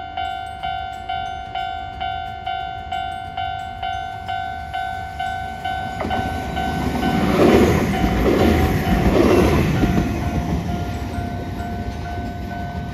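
Japanese level-crossing warning bell dinging about twice a second, stopping at the end. From about six seconds in, a Hiroden 5000-series Green Mover low-floor tram runs past close by, its wheel noise swelling in three pulses before easing.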